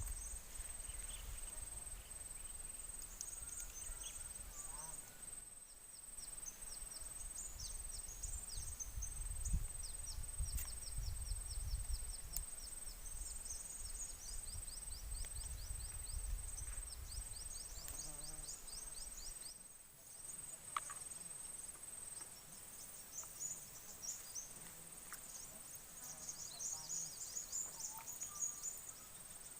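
Insects chirping outdoors in repeated rapid trains of short, high chirps. A low rumble sits under them until about two-thirds through, then stops suddenly.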